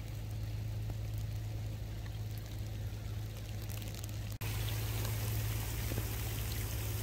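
Rain falling into a shallow pool of muddy floodwater, as a steady hiss with scattered drop ticks over a steady low hum. A little over four seconds in it cuts to a slightly louder, hissier stretch of rain.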